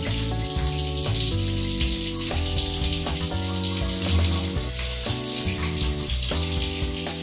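Tap water running steadily into a bathroom sink while a man washes up. Under it, background music of held notes changing about once a second.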